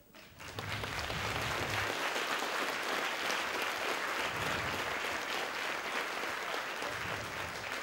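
Audience applauding, starting a moment in and dying down near the end.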